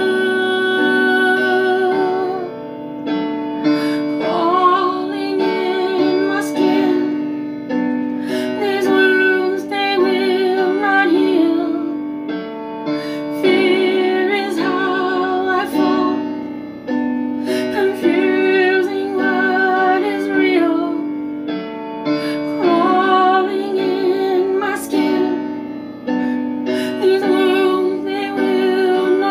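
Piano ballad music with a woman singing long, wavering notes over sustained piano chords.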